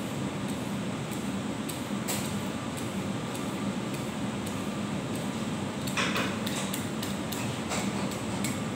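Vegetable peeler scraping down a carrot in short strokes: one about two seconds in, then a quick run of them from about six seconds in. A steady low hum runs underneath.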